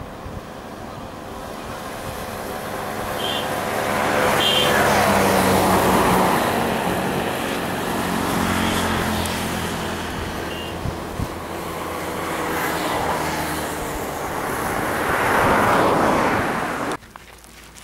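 Motor vehicles driving past, their engine and road noise swelling and fading several times. The sound cuts off suddenly near the end.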